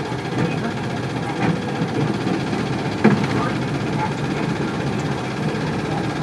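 Inside a 1998 Isuzu Cubic city bus, its 8PE1 V8 diesel running with steady engine and cabin noise. A sharp knock sounds about three seconds in, with a lighter one earlier.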